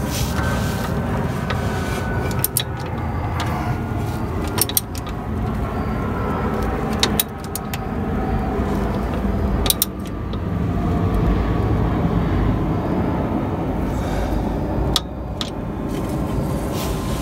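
Hand tools clinking on metal, a sharp click every few seconds, as a wrench works the starter motor's mounting bolt. A steady low rumble runs underneath.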